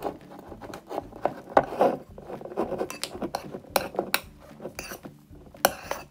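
Metal spoon stirring a thick, foamy fluffy-slime mixture of glue and shaving cream in a ceramic bowl, with irregular clinks and scrapes against the bowl. The mixture is just starting to stick together and pull away from the bowl.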